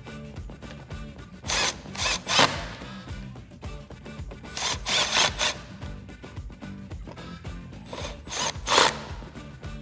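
Cordless power driver running screws into a plastic splash guard under a car's front bumper, in short bursts: about three a second and a half in, a few more around five seconds, and two near the end. Background music plays underneath.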